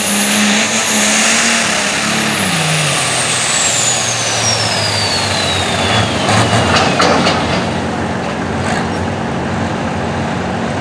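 Turbocharged diesel light pro stock pulling tractor running at full power as it pulls the weight-transfer sled, with a high whistle that falls steadily in pitch over several seconds.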